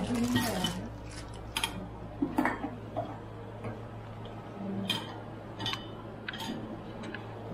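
Scattered sharp clicks and light clinks as stainless-steel mixer-grinder jars and their plastic lids are handled and fitted, over a steady low hum.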